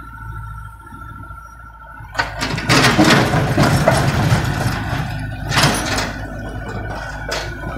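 Komatsu mini excavator's engine running steadily with a high hydraulic whine, then from about two seconds in its steel bucket scraping and crunching into a heap of broken old asphalt for a few seconds, with two more sharp scrapes near the end.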